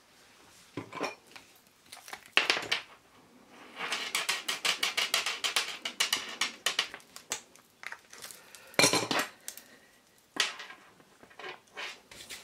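Liquid glue pen dabbed onto a small die-cut paper strip on a craft mat: a run of quick taps, about six a second, in the middle. A few separate louder clacks and rustles of paper and tools being handled come before and after.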